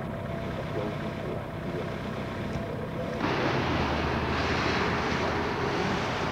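Outdoor noise of road traffic and wind on the camcorder microphone, with a sudden jump to a louder rush about three seconds in.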